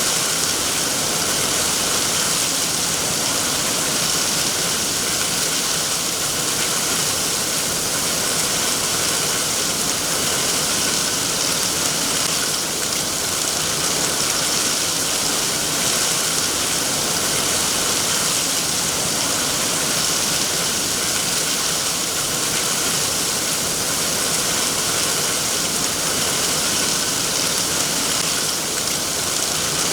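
Steady heavy rain, an even hiss of drops with no pauses or distinct impacts.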